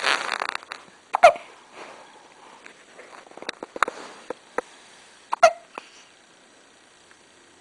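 A person hiccuping: two sharp hiccups about four seconds apart, the first just over a second in, with a brief rustle at the start and a few faint clicks between them.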